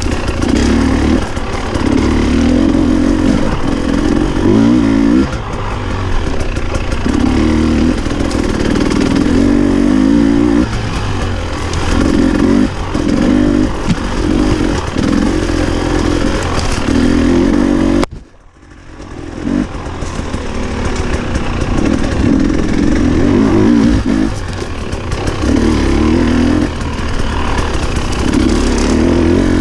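Husqvarna TE 300i two-stroke single-cylinder dirt bike engine under repeated bursts of throttle, revving up and dropping back every second or two. About two-thirds of the way through the sound falls away sharply for about a second, then builds back up.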